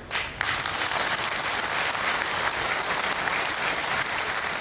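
Crowd applauding: a dense, steady clapping of many hands that starts within the first half second and holds at an even level.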